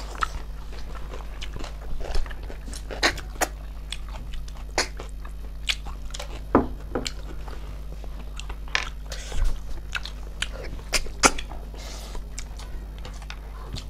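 Close-miked eating of snail curry: chewing and biting, with irregular sharp clicks and crunches, under a steady low hum.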